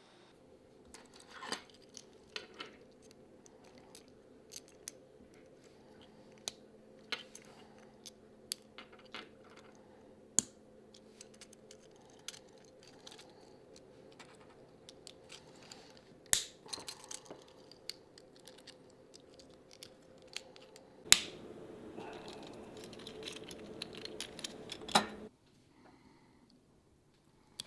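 Small 3D-printed plastic parts being handled: scattered sharp clicks and snaps over a faint steady hum. Near the end comes a few seconds of louder scraping, which ends in a sharp snap.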